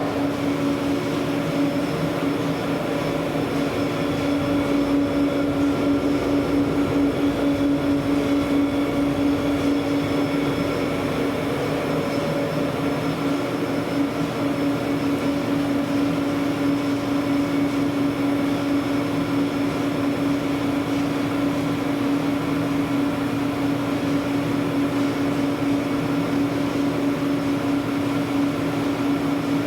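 BEcom BE-SFB-130 belt-driven spiral mixer running, a steady mechanical hum. Its tone shifts right at the start, as it automatically changes over from low to high speed.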